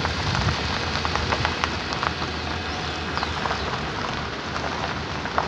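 Wind and road noise from a moving vehicle: a steady rushing hiss with scattered small crackles over a low hum.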